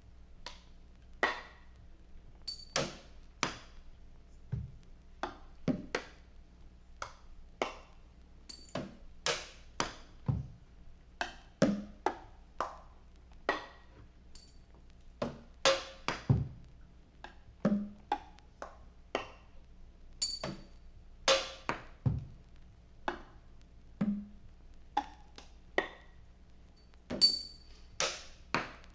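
Sparse, free-time percussion from an experimental band recording: unevenly spaced knocks and taps, about one to two a second, some with a short ringing ping, over a faint steady low hum.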